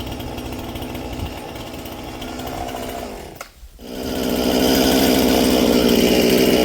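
Husqvarna Rancher 455 two-stroke chainsaw running, falling away briefly about halfway through, then opened up to full throttle and held there, much louder, for the last three seconds.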